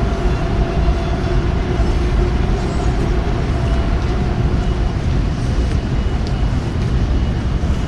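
Steady low rumble with a faint, constant hum at two pitches, unchanging throughout.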